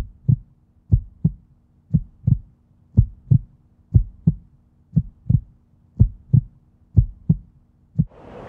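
Heartbeat sound effect: paired lub-dub thumps about once a second, over a faint steady low hum. A rushing noise swells in near the end.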